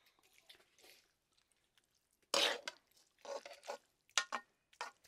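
A person coughing and clearing their throat, with one sharp loud cough a little over two seconds in followed by several shorter ones.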